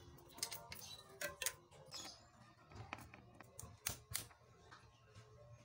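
A removed BMX chain's metal links clicking and rattling as it is handled, in irregular sharp clicks, several a second at times.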